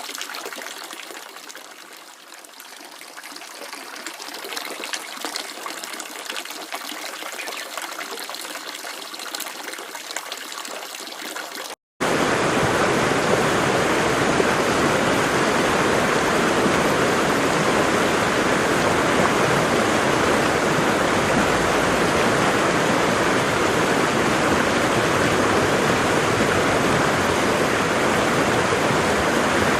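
Falling water: a lighter, splashing flow for about the first twelve seconds, then after an abrupt cut a louder, steady, fuller rush of a waterfall.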